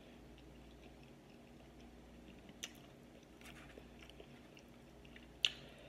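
Faint chewing of a mouthful of fried chicken wings and fries, with a few short sharp mouth clicks, the loudest near the end.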